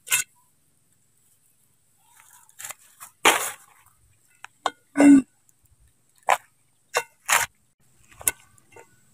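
Whole prawns dropped into a metal cooking pot and pushed about with a wooden stick, making a string of separate knocks and clatters. There are about eight of them, and the loudest, about halfway through, is a clunk with a short ring.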